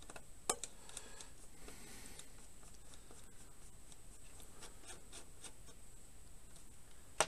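Small screwdriver working on screws inside a PC case: faint scraping and light ticks of metal on metal, with a click about half a second in and a sharp, louder click near the end.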